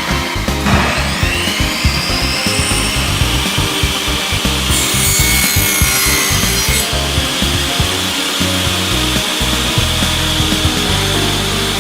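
Power saw cutting wood. The motor whine rises about a second in, a harsh cutting noise runs for about two seconds near the middle, then the saw runs on with a steady whine. Background music plays underneath.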